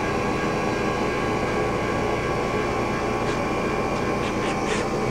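Bridgeport Series I vertical milling machine running under power: a steady mechanical hum with a whine of several held tones.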